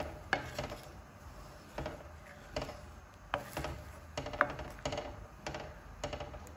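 Spatula stirring a watery egg-and-masala mixture in a wok, with irregular clicks and light knocks as it scrapes and taps the pan.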